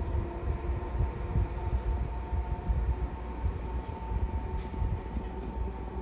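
Electric train running through a station: a continuous low rumble with a steady hum at two pitches.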